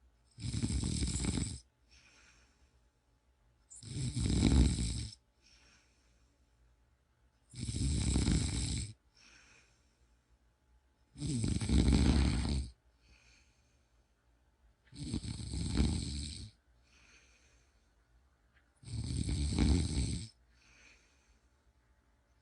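Steady snoring: six loud snores at an even pace, about one every three to four seconds, each lasting about a second and a half, with a faint breath between each pair.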